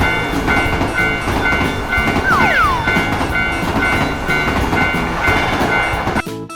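Japanese level-crossing warning bell ringing in a steady two-tone 'kan-kan', about two rings a second, over the rumble of a train running. Two falling whistle-like sweeps come about two and a half seconds in, and the sound cuts off suddenly about six seconds in.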